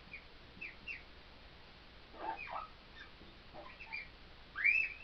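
Marker squeaking on the glass of a lightboard while writing: a scatter of short, high chirp-like squeaks, the loudest near the end.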